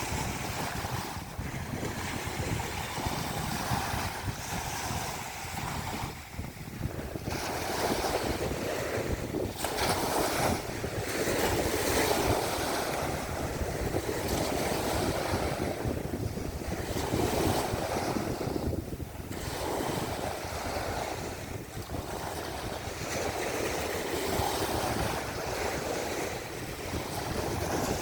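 Sea waves breaking and washing ashore in a continuous surge that swells and eases every few seconds, with wind rumbling on the microphone.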